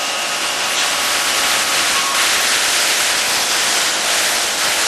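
Steady loud industrial hiss of plant machinery running, with a few faint steady hums underneath; the hiss turns a little brighter about two seconds in.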